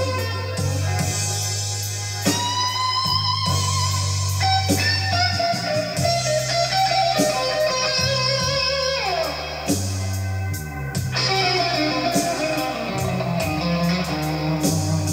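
Blues-rock music: a lead electric guitar plays a solo of held, bending notes over bass and drums, with one long note sliding down about nine seconds in.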